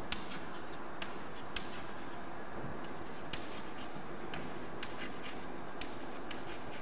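Chalk writing on a chalkboard: a few faint taps and light scratches over a steady background hiss.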